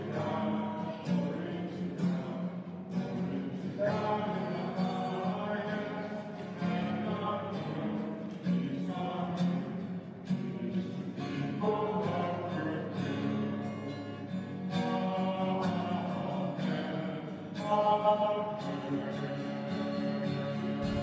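Background music: a sustained tune with a steady, even rhythm and what may be a sung or choir-like line.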